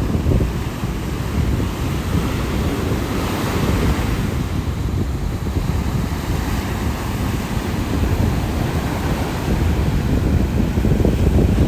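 North Sea surf breaking and washing up the beach, with strong wind buffeting the microphone. The hiss of a wave swells about three to four seconds in.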